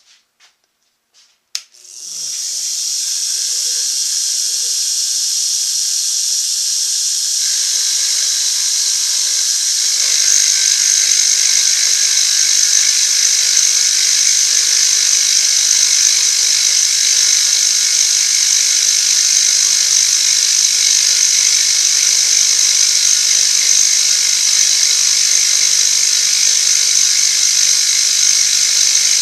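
A few light clicks, then a powered machine tool starts about two seconds in and runs steadily with a high whirring hiss while taking a cut out of the side face of a metal ram; a low hum joins about seven seconds in and the sound grows somewhat louder around ten seconds in.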